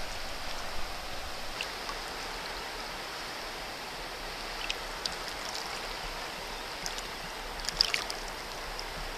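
Steady rush of a fast-flowing, swollen river, with water running over the pebbles at the bank. A few faint splashy clicks come through, the most noticeable a little before the end.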